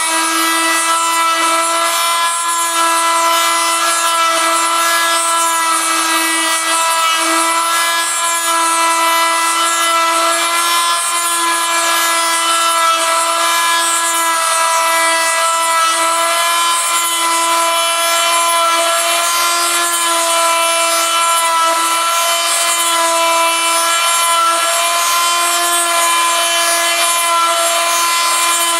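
Homemade wood copy-milling machine running, its cutter motor giving a steady whine that does not change in pitch, with a continuous rasping of the rotary cutter shaving a wooden lure blank.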